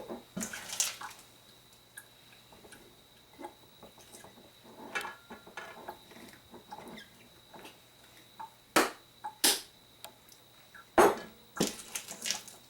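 Wet cucumber slices being packed into a jar by hand: scattered soft clicks and wet drips, with a few sharp louder knocks in the second half.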